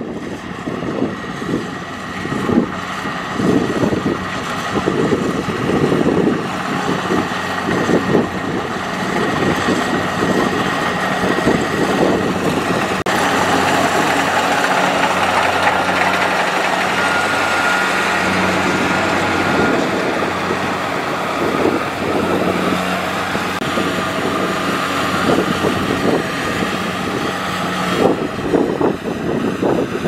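Kubota crawler combine harvester running as it cuts rice: a steady engine drone that grows louder and brighter about halfway through as the machine comes close.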